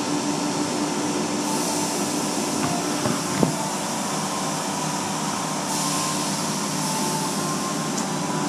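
Automatic car wash heard from inside the car: water jets spraying against the windows and body over the steady hum of the wash machinery. The hiss of the spray gets stronger about a second and a half in and again near six seconds, with one brief thump about three and a half seconds in.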